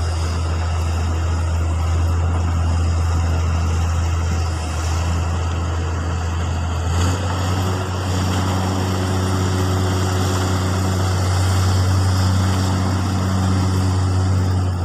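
A heavy construction machine's engine running steadily with a deep, constant hum; about seven seconds in its note shifts and a few steady higher tones join it.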